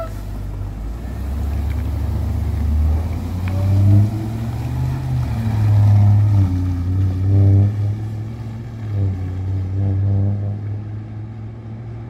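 School bus pulling away: its engine revs up and rises in pitch several times as it accelerates, then fades as the bus drives off down the road.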